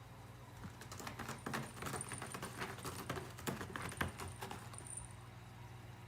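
A cat's claws and paws scratching and clicking on the cardboard shipping box of a cat tower: an irregular run of light scratches and clicks starting about a second in and easing off near five seconds.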